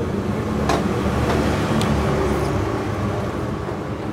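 Steady low drone of road traffic, with a few light clicks of a plastic spoon against a plastic food tub in the first two seconds.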